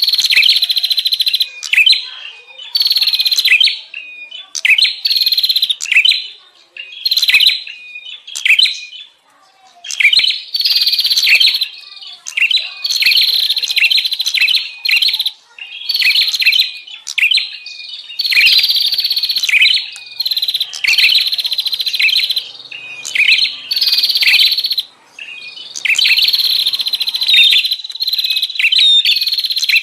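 Prenjak warblers giving loud, busy chattering calls: rapid buzzy phrases about a second or two long, repeating almost without pause. This is the noisy prenjak call used as a lure to draw in wild prenjak.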